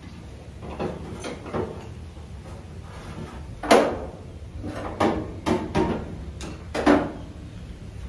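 Irregular clanks and knocks of tools and parts being handled during repair work on an old vehicle, over a low steady hum. The loudest strike comes a little under four seconds in, with more around five seconds and near seven seconds.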